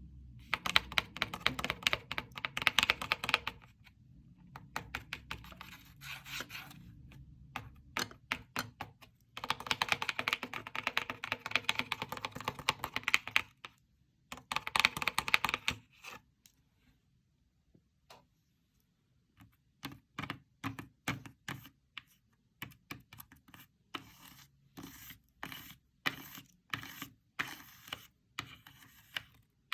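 Handmade paper fidget board being played with by hand. It makes runs of rapid, dense clicking and rattling, then, from about two-thirds of the way in, slower separate clicks one or two at a time.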